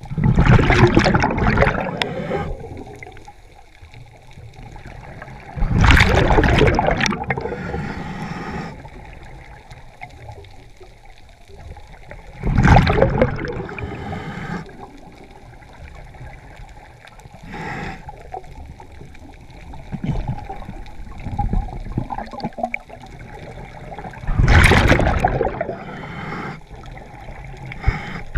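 Scuba diver's exhaled bubbles leaving the regulator, bubbling in four loud bursts several seconds apart, with a fainter hiss between them.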